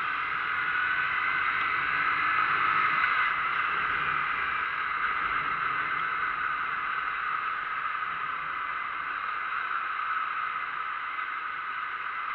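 Steady hiss of rain and wet-road noise heard from a moving vehicle, even throughout.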